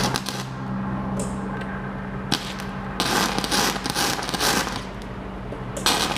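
Flux-core MIG welder arc crackling and spitting in short bursts of welding, the longest lasting about a second and a half near the middle, over a steady low hum.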